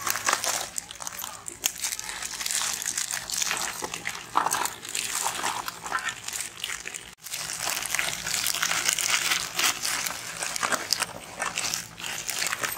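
Plastic Oreo biscuit wrappers being torn open and crinkled by several hands, a dense crackle full of small clicks as the biscuits drop onto a steel plate. The sound breaks off for an instant about seven seconds in.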